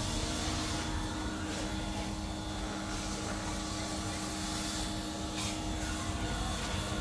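Steady mechanical drone with a constant low hum and even hiss, unchanging throughout.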